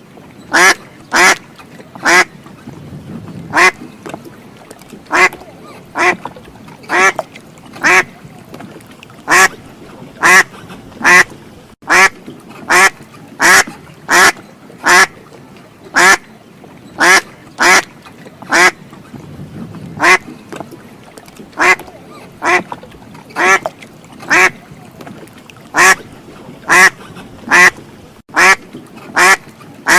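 Duck quacking over and over, loud short quacks coming in quick runs of two to four with brief gaps between runs.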